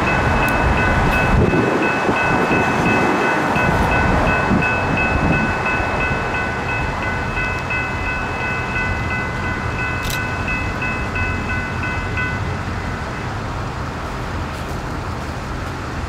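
Railroad grade-crossing bell ringing in a rapid, even rhythm, then falling silent about twelve seconds in; the crossing has activated for an approaching train. A steady low rumble of road traffic and wind runs underneath.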